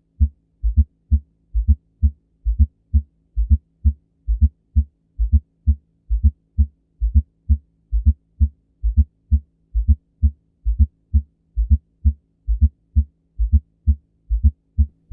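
Heart sounds through a stethoscope: a steady, regular run of low, dull beats over a faint steady hum, with a fourth heart sound (S4 gallop) just before each first heart sound. The S4 is the sign of a stiff, thickened left ventricle, as from scarring after coronary disease, hypertension or aortic stenosis.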